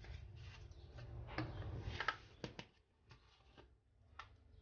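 Spice container and measuring spoon being handled: a soft rustling shake, then a few sharp taps and clicks as the last of the paprika is knocked out of a nearly empty container.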